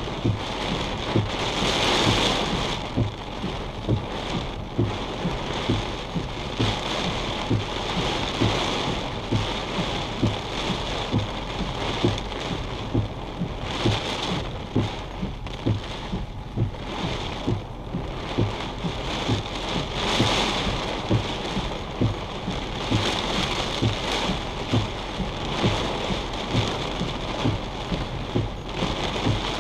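Heavy thunderstorm rain drumming on a vehicle's roof and windshield, swelling and easing in gusts every few seconds. A faint regular ticking runs under it, about twice a second.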